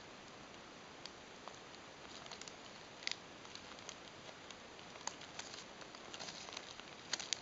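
Faint crinkling and small sharp clicks from hands and a plastic fork tearing open a soft steamed meat bun on a paper sheet, over a steady hiss. A few louder clicks stand out, one about three seconds in and a cluster near the end.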